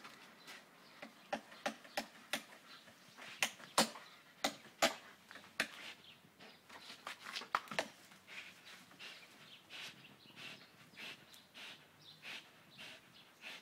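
A Belgian Malinois leaping and biting at tree branches, with a run of sharp snaps and cracks, a dozen or so between about one and six seconds in, then softer rustling; faint bird chirps in the background.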